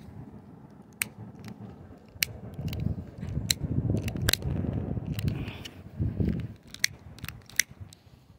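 Handling noise from a phone's microphone rubbing against hair: a scatter of sharp, irregular crackles and clicks over a low rumble that swells and fades.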